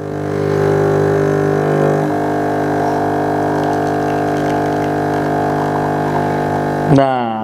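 Pump of a Ferratti Ferro FCM3017 home espresso machine buzzing steadily while it pulls an espresso shot. The hum builds over the first second, holds level, and cuts off sharply near the end as the shot is stopped.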